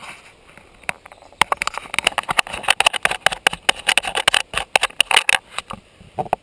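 Close handling noise on an action camera: rapid, irregular crackling and scraping as the camera is worked loose from its mount on the ATV rack. It starts about a second and a half in and stops just before the end.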